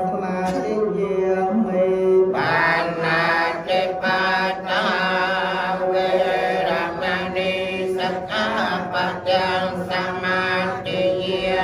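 Theravada Buddhist monks chanting together in unison, a steady drone of men's voices on held notes that grows fuller a little over two seconds in.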